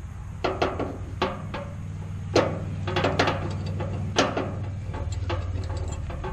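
A string of sharp knocks and clanks at uneven intervals, about ten in a few seconds, over a steady low hum.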